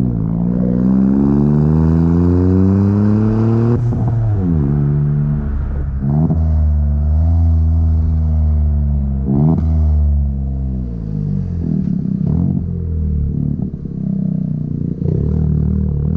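Chevrolet Onix RS's turbocharged three-cylinder engine through an aftermarket sport exhaust with a Luzian LA011 intermediate muffler, revving up and falling back several times. The pitch climbs, then drops sharply about four seconds in and again about nine and a half seconds in.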